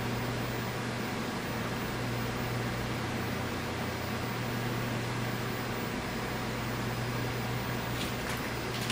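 Steady low hum with an even hiss from running electrical equipment or a fan, unchanging throughout, with a couple of faint clicks near the end.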